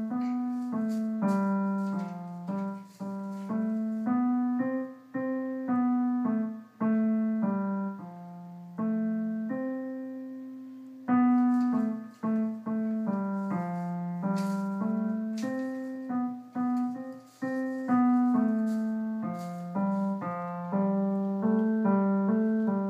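Piano being played: a simple melody of struck, decaying notes over low bass notes, with a short break about eleven seconds in before it picks up again.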